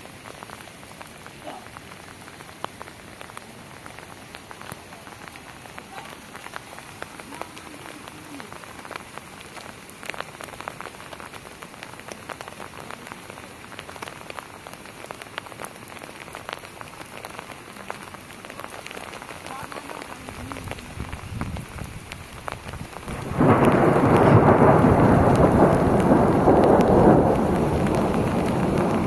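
Steady rain falling, with fine ticks of individual drops. About twenty seconds in a low rumble begins to build, and a few seconds later a loud roll of thunder breaks in suddenly and carries on to the end.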